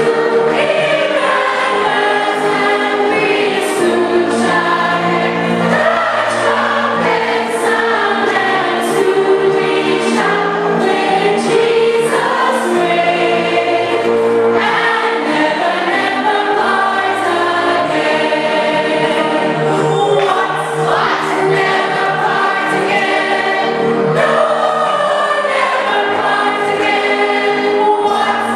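A choir singing a gospel hymn with accompaniment.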